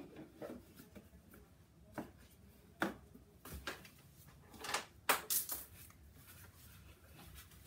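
A handful of short rustles and light knocks as small cardboard gift boxes and their lids are handled, the loudest a little past halfway.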